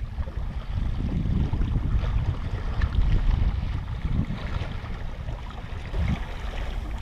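Wind rumbling on the microphone, a steady low buffeting, over gentle lapping of calm sea water.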